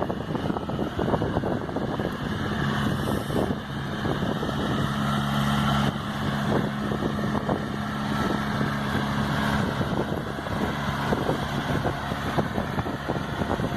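John Deere 6130R tractor running steadily while baling silage with a John Deere F441R round baler: a steady engine hum with irregular clatter and knocks from the machinery.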